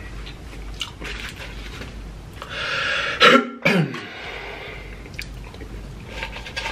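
A man's throat-clearing cough: a drawn-in breath, then two loud quick bursts falling in pitch about three seconds in.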